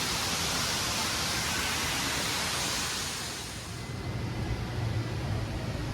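A steady rushing noise fades out about three and a half seconds in, and a low engine hum takes over.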